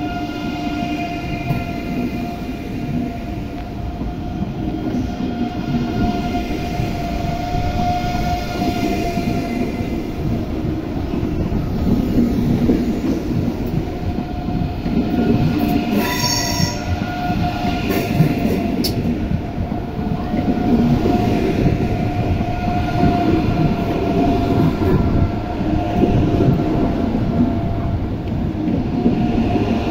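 ICE 3M (class 406) electric high-speed train pulling out and gathering speed: rolling rumble with a steady electric whine from the drive, growing louder as it accelerates. A brief high squeal comes about sixteen seconds in.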